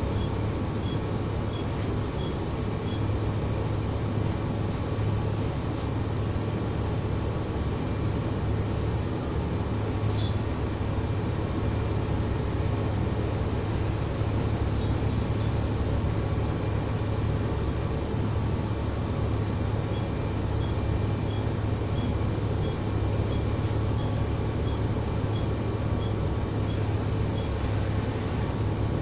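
Volvo ALX400 double-decker bus running steadily, a constant low engine drone under road noise. A light regular tick, about twice a second, comes in for a few seconds at the start and again later.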